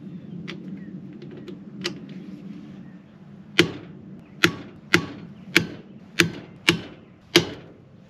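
Hammer striking a hand impact driver on a seized wheel lug nut: seven sharp metallic blows about half a second apart, starting around the middle, each ringing briefly. A few lighter clicks come before them as the tool is set on the nut. The blows do not budge the nut.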